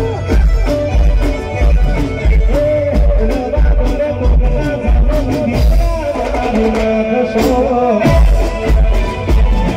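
Live garba music played loud through a PA: singing over a heavy, steady drum beat and keyboard. A little past the middle the beat drops out for about two seconds under a held melody line, then comes back in.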